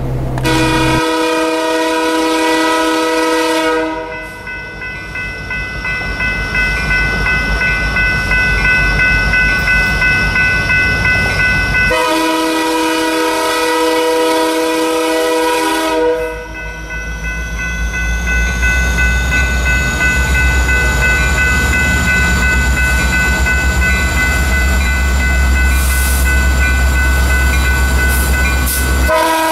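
Approaching Canadian National freight train led by a CN SD75I: its multi-note air horn sounds two long blasts about twelve seconds apart, and a third starts near the end. Underneath, the diesel engines and rolling wheels make a low rumble that builds as the train draws closer.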